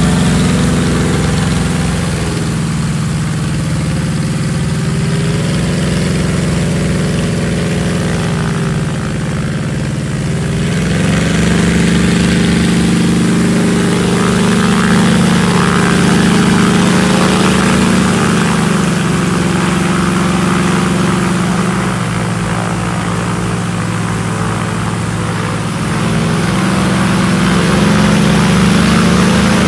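Wag-Aero Wag-a-Bond light plane's piston engine and propeller running at low taxiing power. The engine note rises and falls as the throttle is worked, with a louder, higher-power stretch starting about eleven seconds in and another near the end.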